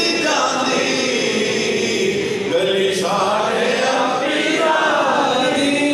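A man's voice chanting verse in long, drawn-out melodic phrases into a microphone, in the sung style of a devotional recitation.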